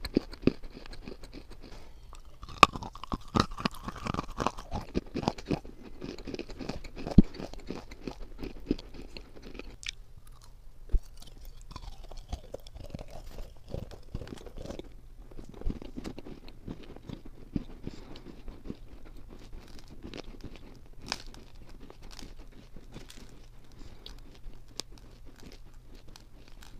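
Close-miked crunching and chewing of hard white Hyderabadi khadi clay: sharp cracks come thick and fast through the first ten seconds or so, with a few loud snaps. After that the chewing goes on softer, with fewer and fainter cracks.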